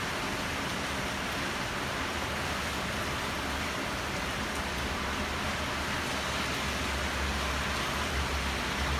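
Heavy rain falling steadily, an even hiss. Underneath it is a low rumble that grows stronger over the last few seconds, fitting traffic on the wet road.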